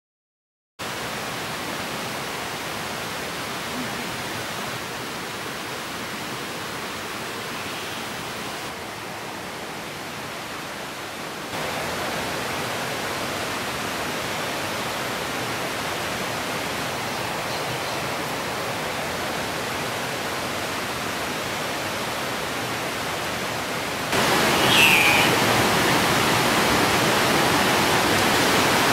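Steady, even rushing noise of forest ambience, starting about a second in and stepping louder twice. A few faint short calls come near the end.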